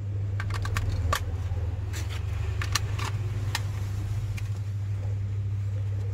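AA batteries being pressed into a plastic toy gun's battery compartment in the grip and the cover fitted shut: a series of light plastic clicks and taps over the first three and a half seconds, over a steady low hum.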